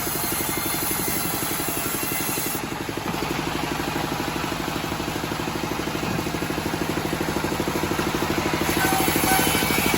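Engine of a homemade band sawmill running with a fast, even throb. A high hiss over it drops out about a quarter of the way in and comes back near the end.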